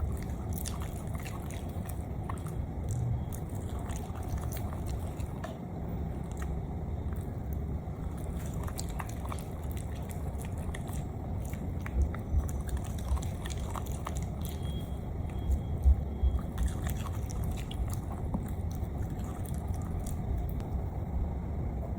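Pug eating soft fresh dog food, wet chewing and smacking with many small clicks. There are a few louder knocks about halfway through and again a few seconds later.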